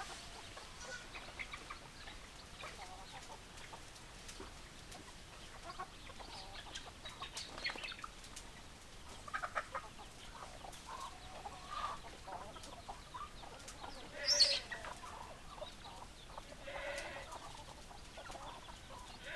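Chickens clucking with scattered short calls throughout, and one louder, higher-pitched call about two-thirds of the way through.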